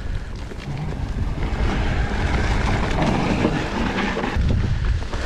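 Wind rushing over the microphone of a mountain bike ride, with the tyres rolling over dry leaves and dirt on a forest singletrack and the bike rattling over the bumps.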